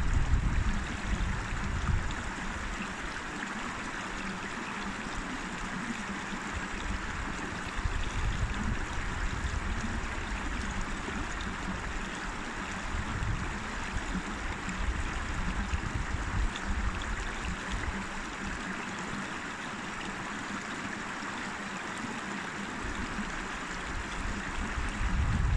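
River water running steadily over stones, a continuous rushing and trickling. A low rumble sits under it in the first couple of seconds and again near the end.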